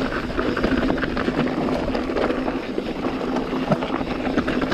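Mountain bike riding down a rocky, loose trail: a steady rush of tyres on gravel and rock, with many short rattles and knocks from the bike jolting over stones.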